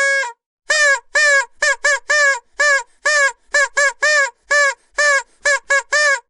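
Vuvuzela blown in a rapid string of short, loud toots on one note, each with a slight bend in pitch as it starts, about two or three a second after a held note that cuts off just after the start.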